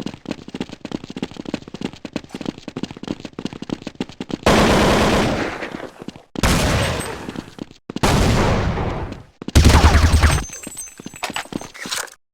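Fart sounds: a long, rapid sputtering one, then four loud separate blasts about two seconds apart, each starting abruptly and trailing off, the last the deepest.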